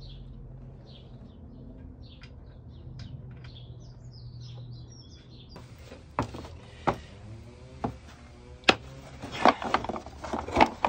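Faint bird chirps over a low hum, then a series of sharp metallic clicks and knocks from hand tools being handled, the loudest about nine seconds in and a quick run of them near the end.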